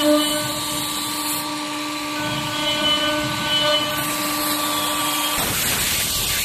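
Wood CNC engraving machine running: a steady hum made of several held tones, giving way to a louder rushing noise for about the last second.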